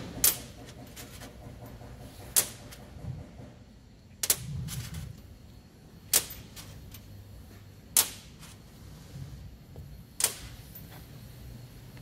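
Steel wheel studs being set down one at a time on a stainless-steel workbench: six sharp metallic clicks, about one every two seconds, over a low steady hum.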